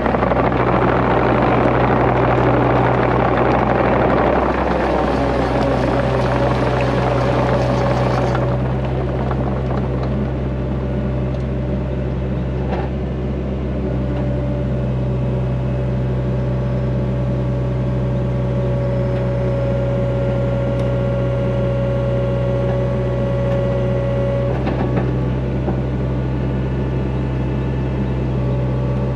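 Hyundai HX85A compact excavator's diesel engine running steadily under load, heard close by its track. For the first eight seconds or so a louder rushing noise rides over it while the machine moves, then it settles to a steady hum with a thin hydraulic whine as the boom holds and lowers a concrete cube.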